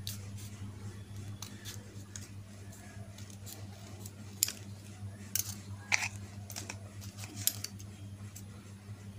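Scissors snipping through folded lined paper in short, irregular cuts, over a steady low hum.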